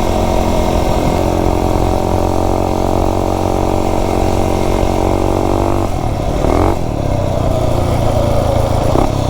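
Single-cylinder four-stroke Tillotson 263 minibike engine running under way at a steady speed, its note changing about six seconds in. The engine is freshly rebuilt and still breaking in, and the rider finds it running real rich, so it kind of stutters.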